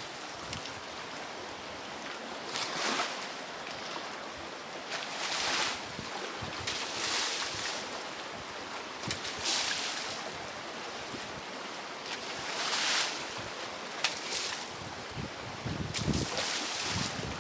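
Rough, agitated river water rushing steadily, with waves surging and splashing every two to three seconds. A few sharp knocks come near the end.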